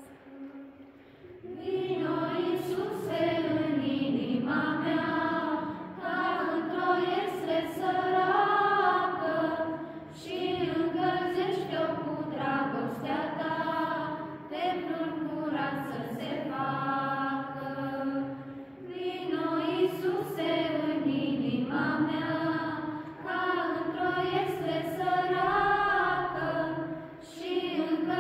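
A group of women and girls singing a Romanian Christmas carol (colindă) unaccompanied, in phrases of a few seconds with short breaks between them; the singing comes in about a second and a half in.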